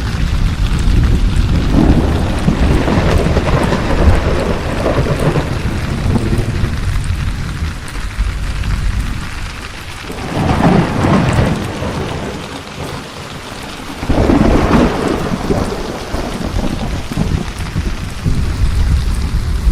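Steady heavy rain with thunder rumbling. There is a long low roll over the first several seconds, and two louder peals come about 10 and 14 seconds in.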